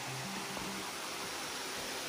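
Steady rush of water from small waterfalls cascading down a rocky creek.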